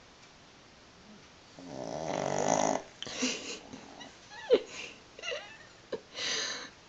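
A sleeping pug snoring: a long rasping snore about one and a half seconds in, then a run of short snorts and sharp clicks, and another rasping breath near the end.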